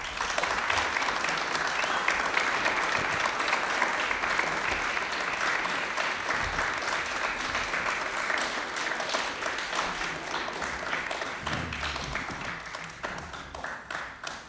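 Audience applauding, a dense patter of many hands that starts at once and tapers off near the end.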